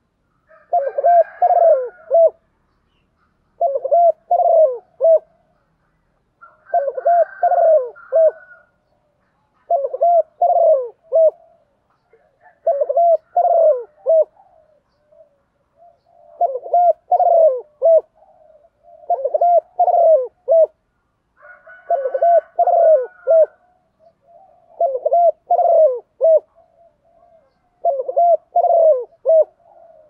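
Female spotted dove cooing: short phrases of three or four coos, repeated every two to three seconds. This is the hen's call that stirs up and draws in male doves. A fainter, higher chirping joins a few of the phrases.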